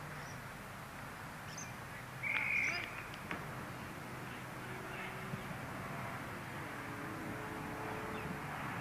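Sideline sound of a football match on worn VHS-dubbed camcorder tape: steady tape hiss and hum, a short shrill sound about two seconds in, and faint distant calls from the field later on.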